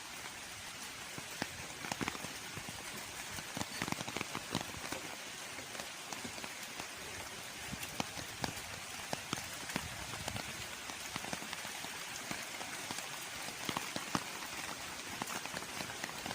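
Rain falling: a steady hiss with many scattered drops ticking irregularly.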